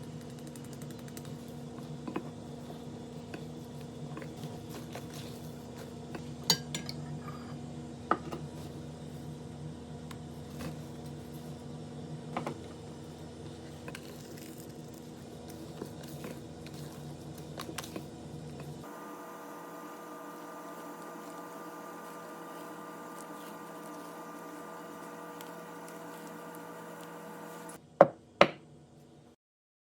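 Kitchen utensils and bowls clinking and tapping during baking prep over a steady hum, with two sharp, loud clinks near the end.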